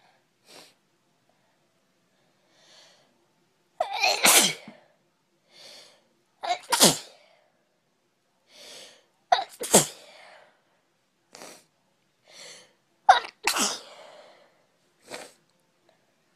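A girl sneezing four times in a row, roughly three seconds apart, with fainter sounds in between.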